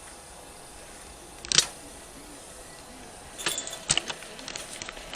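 Metal tools clinking and knocking in a blacksmith's forge: one sharp clink about 1.5 s in, then a quick run of lighter clinks and knocks near the end, over a steady background noise.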